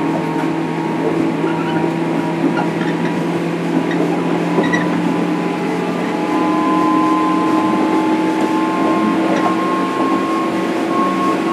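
Running sound heard from inside a JR Kyushu 103 series 1500-subseries electric motor car: the steady hum of its MT55 traction motors over wheel-on-rail rumble. It grows slightly louder about six seconds in, with a higher hum line joining.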